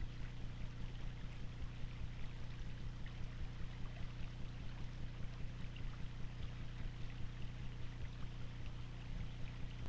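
Trail camera audio: a steady hiss with a low electrical hum and frequent faint crackles, with no distinct event.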